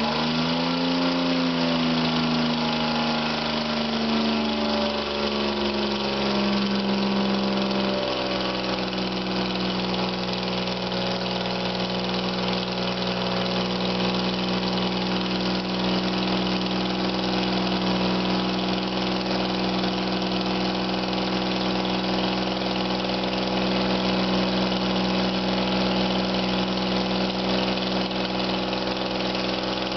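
Freshly rebuilt Citroen SM 2.7-litre Maserati V6 with triple Weber carburettors running on a test stand on its first start. Its speed wavers for about the first eight seconds, then settles to a steady fast idle held for break-in of the cams and piston rings. A minor exhaust gasket leak at the old gaskets is present.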